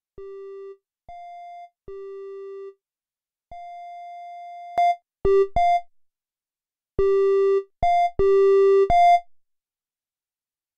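Akai Force's Fabric synth playing single plain triangle-wave notes that alternate between a lower and a higher pitch, with short gaps between them. About halfway through, the notes become much louder as the AIR Maximizer squashes the track.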